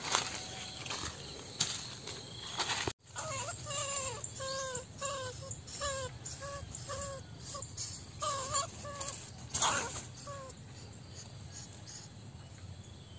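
Rustling and a few clicks, then a run of short pitched animal calls, about two a second, that stop near the end.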